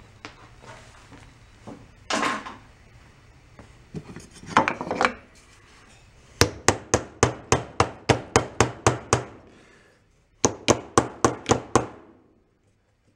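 Soft-faced mallet tapping repeatedly on an old outboard motor's metal lower unit housing, in two quick runs of strikes at about four a second with a short pause between them, after some clatter of tools being handled.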